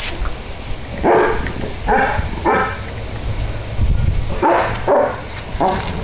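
A dog barking: three barks, a pause, then three more.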